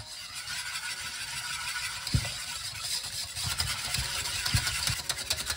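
Wire whisk beating eggs and sugar fast in a bowl: a steady scratchy swishing with a few low knocks.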